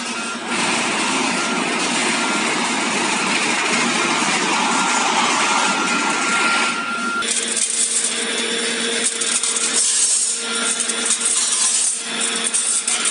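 Automatic steel wire mesh welding machine running: a dense steady mechanical noise with a constant whine, then, after a sudden change about seven seconds in, irregular metallic clatter over a lower steady hum.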